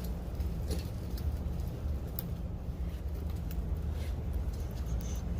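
A steady low rumble with a few light clicks of hand tools working on the engine.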